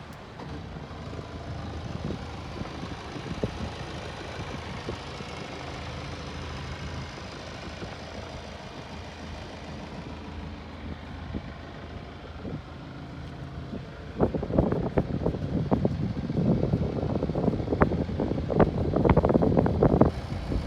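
Motorboat engine running steadily, with wind noise. About two-thirds of the way through, a run of loud, irregular thumps starts over it and carries on to near the end.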